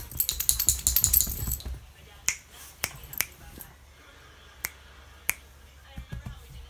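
A quick clatter of sharp clicks lasting about a second and a half, then single clicks every second or so and a small cluster near the end.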